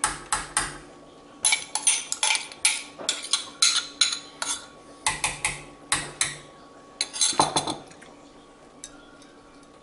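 A metal spoon scraping and clinking against a yogurt container as the last of the yogurt is scraped into the soup pot. There is a quick, irregular run of strokes, about two to four a second, that stops near the end.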